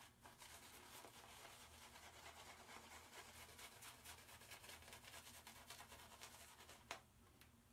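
Shaving brush being worked over a lathered face: a faint, fast scratchy crackle of bristles through the lather, which stops with a small click near the end.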